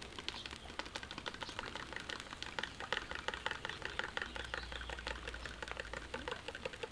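A fork beating eggs in a plastic measuring jug: a rapid, even tapping of the tines against the jug.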